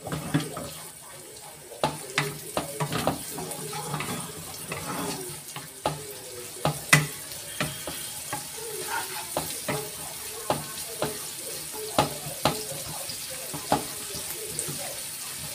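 Shallots and garlic sizzling in hot oil in a frying pan, with a steady hiss, while a wooden spatula stirs them and knocks against the pan in irregular sharp taps about once a second.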